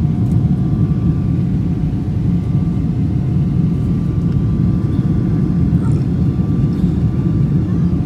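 Steady cabin noise inside a Boeing 777-300ER climbing after takeoff: a loud, even rumble of its GE90 jet engines and rushing air, with a faint steady whine on top.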